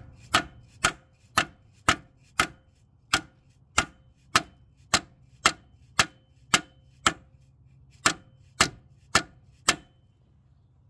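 Soft-faced hammer blows, about two a second and some eighteen in all, on a long steel bar set against a freeze plug in a Jeep 4.0 engine block: sharp knocks each with a brief faint ring, stopping about a second before the end. The plug barely budges under these softer blows.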